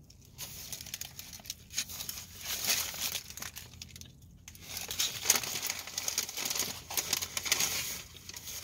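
Paper sandwich wrapper crinkling and rustling in irregular bursts, loudest about five seconds in.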